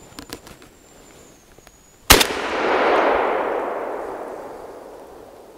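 A single shotgun shot about two seconds in, its report rolling away through the forest and fading over about three seconds: the shot that brings down a hazel grouse. Before it, a faint thin high whistle.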